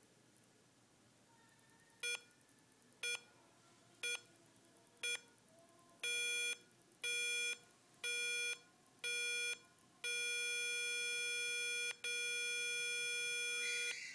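Burglar-alarm keypad buzzer counting down a panic delay. It gives short beeps once a second, then longer half-second beeps once a second, then a continuous tone from about ten seconds in, broken once briefly. The countdown is running out and the panic alarm is going off.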